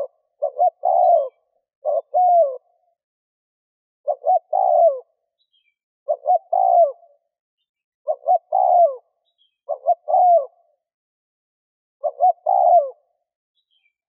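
Spotted dove cooing over and over. Each phrase is a couple of short coos and then a longer coo that falls in pitch, repeated about every two seconds.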